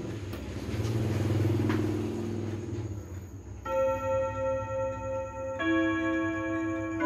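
Mauthe wall clock's eight-rod chime ringing. After a few seconds of low handling noise the gong rods start to ring, and a second, different chord strikes about two seconds later, each note ringing on. The chime was set off by turning the minute hand to the hour.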